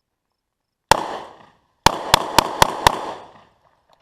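Handgun gunshots: a single shot, then about a second later five shots fired rapidly, about four a second. Six in all, each echoing back off the range backstop.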